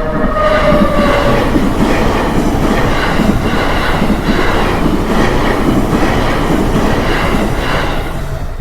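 A train passing close by, its wheels clattering over the rail joints in an even beat. A high whine falls slightly in pitch during the first second or so.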